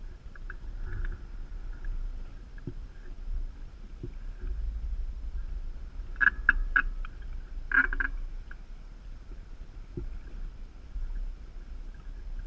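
Wind buffeting a camera at a sailboat's masthead, a steady low rumble, with two short runs of squeaky creaks about six and eight seconds in and a few light knocks.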